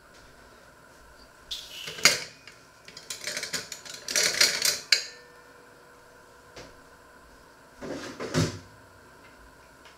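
Metal kitchen utensils clattering and jingling as a pair of tongs is put into a ceramic crock of cutlery: a sharp clatter about two seconds in, a longer jingling run between three and five seconds, and a shorter clatter near eight seconds.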